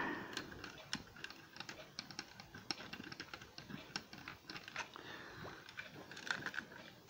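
Small screwdriver turning a tiny screw in a plastic packaging base: faint, irregular clicks and light plastic scraping.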